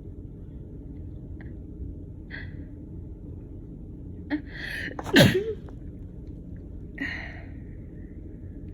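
A woman sneezing once, about five seconds in: a few short catching breaths build into one loud sneeze whose voice drops in pitch, followed by a breath out about two seconds later. A steady low rumble sits in the background.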